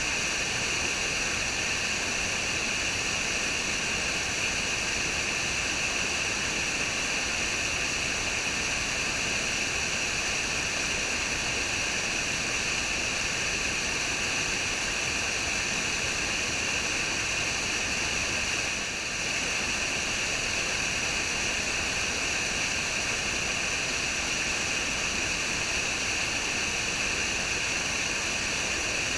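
Waterfall: a steady, hissy rush of falling water with most of its energy high up, dipping briefly about two-thirds of the way through.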